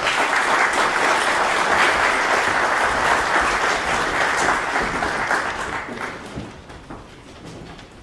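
Audience applauding: dense clapping that holds steady, then thins and dies away about six seconds in.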